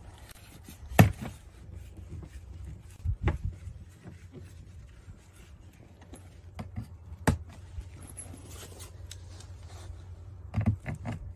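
A few sharp clicks and knocks of a screwdriver and brass bolts being worked by hand at a pond skimmer's faceplate, over a steady low rumble. The loudest click comes about a second in, with fainter ones spread through the rest.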